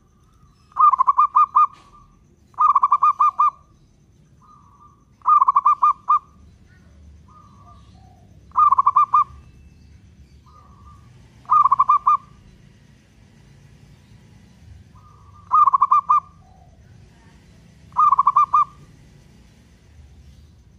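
Zebra dove (local perkutut) cooing: seven short phrases of rapid staccato notes, each under a second long and a few seconds apart, several led by a soft single note.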